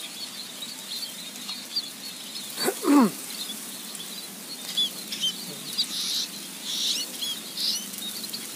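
Small birds chirping steadily and high-pitched. About three seconds in, one loud, brief sound falls steeply in pitch, and a few short rustling bursts come near the end.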